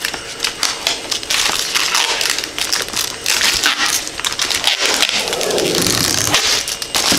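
Thin clear protective plastic film being peeled off a PEI build sheet and crinkled in the hand, a dense crackling.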